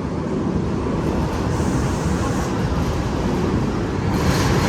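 Steel roller coaster train rumbling along its track, a low steady roar that grows slowly louder.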